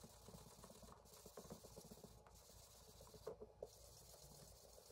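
Near silence with faint, irregular scratching and light clicks over a low steady hum.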